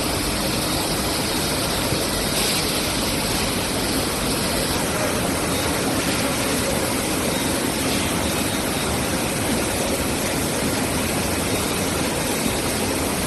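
Steady machinery noise of a tomato paste canning line, with conveyors and processing machines running continuously, an even rushing hum without distinct strokes.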